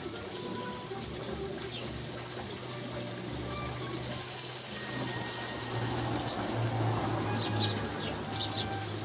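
Sauced boneless pork loin chops sizzling on the grate of a kamado grill, a steady hiss that swells slightly midway as the sauce cooks onto the meat.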